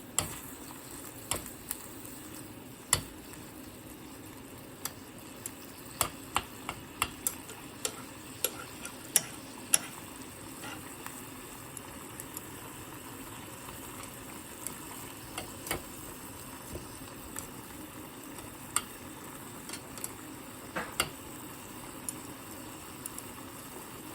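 Kho quẹt sauce of pork, fish sauce and sugar sizzling and bubbling in a pot as it reduces and thickens. A spoon stirring clicks sharply against the pot now and then, most often between about six and ten seconds in.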